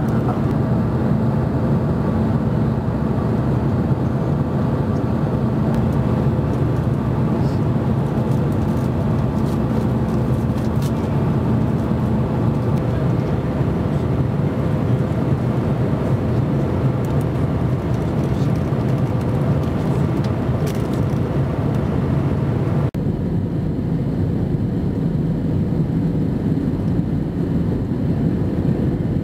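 Steady cabin noise inside an Airbus A320 airliner in flight: the hum of engines and airflow, with a few steady tones. About twenty-three seconds in it cuts abruptly to a different steady cabin roar, heavier in the low end, as the aircraft is on approach.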